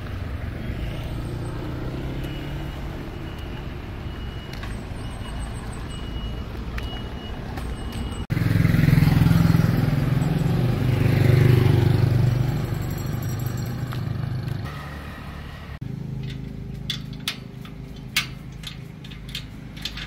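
Street traffic: a steady hum of passing vehicles. From about 8 s in a louder motor vehicle runs close by, swelling and then fading. Near the end come a series of sharp metallic clicks from the steel sliding bolt of a gate being handled.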